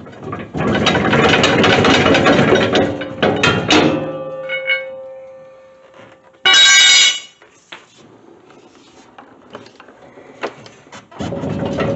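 3/4-inch impact wrench hammering on the bush hog's blade bolts in bursts: a long run of about three seconds, a short burst about seven seconds in, and another starting near the end, with metallic ringing fading between.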